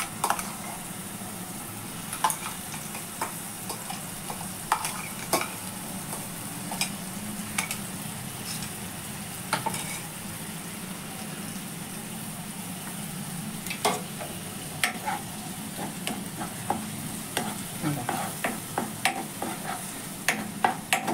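Ground coconut, green chilli and cumin paste sizzling in hot oil in a nonstick wok, with scattered clicks and pops. Toward the end a spoon stirs and scrapes the paste around the pan, the clicks coming faster.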